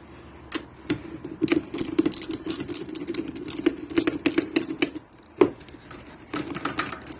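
Hand ratchet with a 5/16 socket clicking rapidly as hose-clamp and sensor-housing bolts are loosened, with metal parts rattling, one sharp knock about halfway through and a steady low hum underneath.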